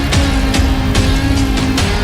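Background music with a steady, driving drum beat and held synth or guitar notes.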